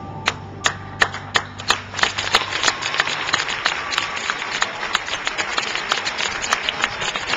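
Audience applauding: a few separate claps at first, building about two seconds in into steady, dense applause.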